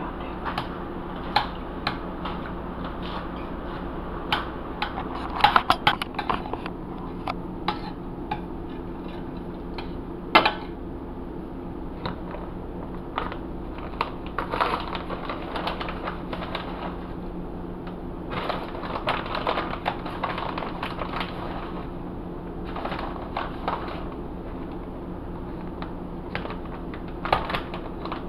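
A metal spoon clinking and scraping against a stainless steel skillet while a cream sauce is stirred, in irregular taps with a few louder clinks, over a steady low hum.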